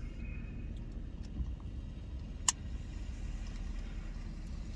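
Steady low rumble of a truck's engine idling, heard from inside the cab, with one sharp click about two and a half seconds in.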